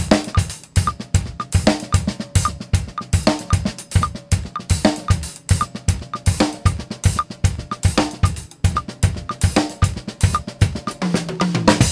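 Acoustic drum kit played with sticks: a steady groove in 3/4 on kick, snare, hi-hat and cymbals, with the kick drum anticipating each downbeat by a sixteenth note, played against a metronome click. The playing stops just before the end.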